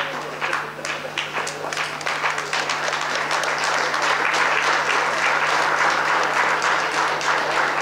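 Audience applauding: dense, sustained clapping that grows fuller about three seconds in.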